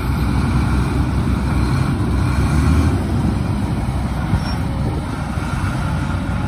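Heavy diesel engines of a Shantui DH17 bulldozer and a dump truck running under load as the dozer pushes the stuck truck forward: a steady low rumble.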